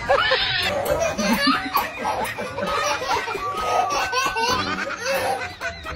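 Laughter, with a baby laughing.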